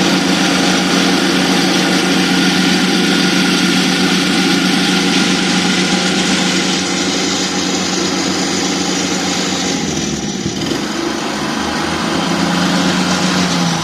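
Lawn mower engine running steadily, its note briefly dipping and recovering about ten seconds in.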